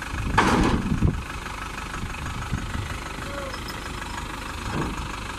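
Crown Sumo combine harvester's engine idling steadily, with a brief louder burst about half a second in.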